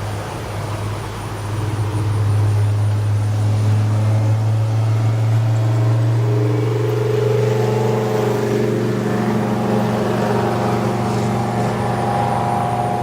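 Whelen WPS-4004 electronic warning siren sounding on test. A steady low hum runs throughout, and from about four seconds in a tone climbs slowly in pitch.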